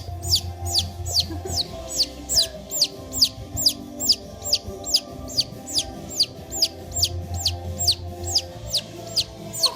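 High, downward-sliding chirps repeated steadily about three times a second, like a bird or chick peeping, over background music.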